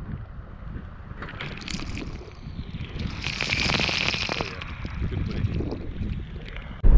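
Ocean surf washing on the shore, one wave's hiss swelling to its loudest about three to four and a half seconds in, over a steady low rumble.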